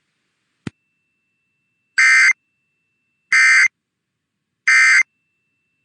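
Emergency Alert System end-of-message signal: three short bursts of SAME digital data tones, each about a third of a second long and a little over a second apart, marking the end of the test alert. A single click comes just before the first burst.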